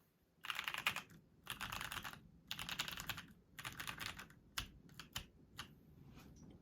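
Eniigma Infinitum TKL mechanical keyboard, with a full aluminium plate, no dampening and stock factory-lubed Pewter switches, being typed on. After a brief pause come four quick runs of keystrokes, then a few scattered single key presses that thin out near the end.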